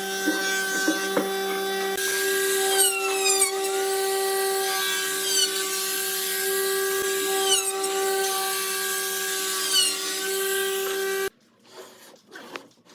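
Electric power tool running with a steady whine. Its pitch dips briefly three or four times, and it cuts off suddenly near the end, leaving a few faint knocks.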